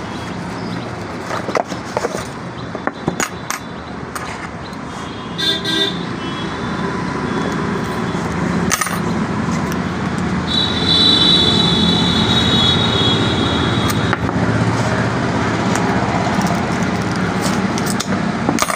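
Street traffic running steadily, with a vehicle horn tooting briefly about five seconds in. A longer high-pitched tone sounds from about ten to fourteen seconds in, and scattered light clicks are heard throughout.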